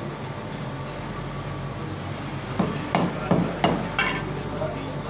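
Butcher's cleaver chopping goat meat on a wooden chopping block: five quick blows, about three a second, starting a little past halfway.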